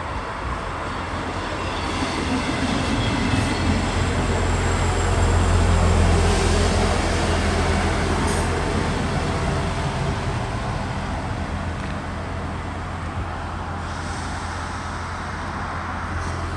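Class 158 diesel multiple unit, unit 158881, running along the platform: a steady low diesel engine drone with wheels rumbling on the rails. It swells to its loudest about six seconds in as the train draws alongside, then eases off.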